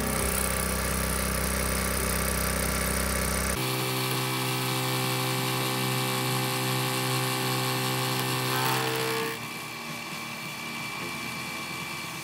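Vertical milling machine running with a titanium-coated high-speed steel end mill cutting 6061 aluminum angle: a steady machine whine with a hiss of cutting over it. The tone changes abruptly about three and a half seconds in, and the level drops about nine seconds in.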